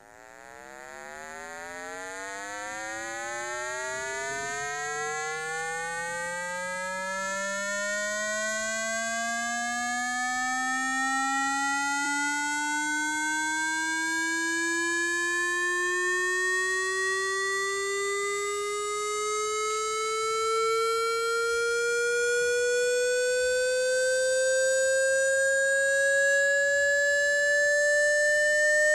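Synthesised speaker-cleaning tone for shaking water and dust out of a phone speaker: one buzzy electronic tone that glides slowly and steadily upward in pitch, fading in over the first few seconds.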